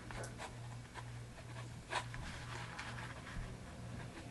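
Faint paper-handling sounds: cardstock rustling and scratching, with a few light clicks, as a heart-shaped metal brad is pushed through a punched hole. A steady low hum runs underneath.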